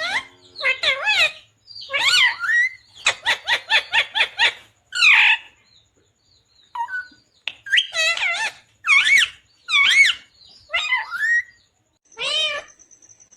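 Indian ringneck parakeet calling and chattering: a string of loud, warbling squawks that bend up and down in pitch. About three seconds in there is a quick run of short repeated notes, and the calls pause briefly around the middle before starting again.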